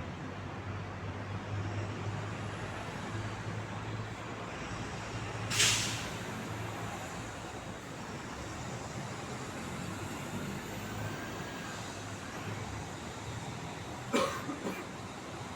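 Street traffic with a heavy vehicle's engine running, and two short, loud air-brake hisses, one about five seconds in and one near the end.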